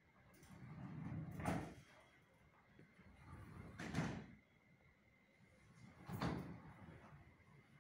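Panels of a large nine-panel glass sliding folding door rolling along the track as the door is folded open, three runs in turn, each swelling and ending in a sharp knock.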